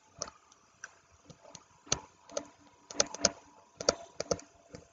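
Stylus tapping on a tablet screen while handwriting: a run of irregular small clicks, several coming close together in the second half.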